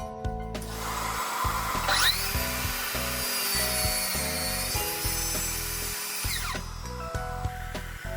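A power tool's electric motor spins up with a rising whine about two seconds in, runs steadily for about four seconds, then winds down with a falling whine. Background music plays under it.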